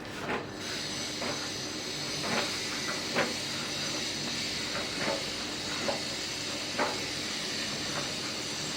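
Samsung heat pump tumble dryer running: a steady hum and hiss from its motor and fan, with soft irregular thuds about once a second as the laundry drops in the turning drum.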